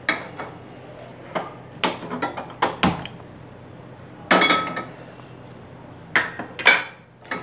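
Tri-ply stainless steel frying pans clanking against the gas stove's pan supports as they are moved and set down: a series of sharp metallic knocks and clinks, with a longer ringing clank about four seconds in.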